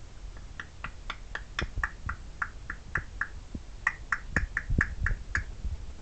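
Congo African grey parrot making a rapid series of short, sharp clicks, about four a second, with a brief pause midway before the run starts again.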